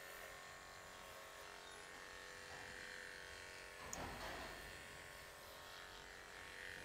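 Liveryman Harmony Plus cordless horse clippers running with a quiet, steady buzz as they clip hair from a pony's leg. A brief soft rustle comes about four seconds in.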